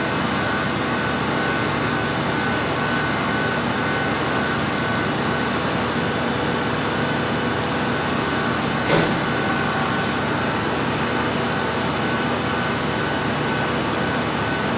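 Steady hum of laboratory machinery and ventilation, with a faint steady tone, and a single short click about nine seconds in.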